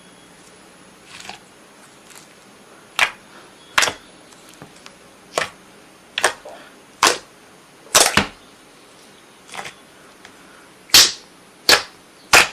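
A series of balloons bursting: about ten sharp pops at irregular intervals, some close together in pairs, the loudest near the end.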